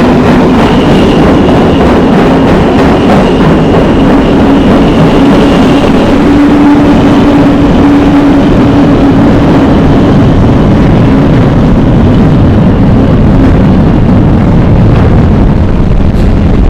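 New York City subway train running, amplified until it distorts into a harsh, constant wall of noise at full loudness. A steady humming tone sounds through the first half and then fades.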